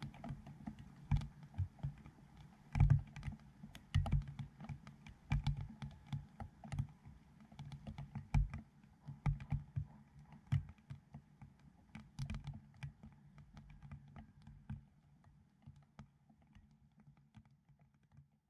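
Raindrops striking a GoPro dome housing: an irregular patter of sharp ticks, many with a dull low thud, thinning out and fading near the end.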